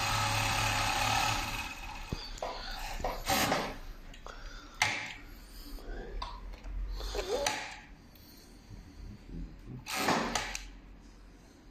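Four-thread overlock sewing machine running steadily, then stopping about two seconds in. After that come scattered short knocks and rustles of hands handling the elastic tape and the tape feeder.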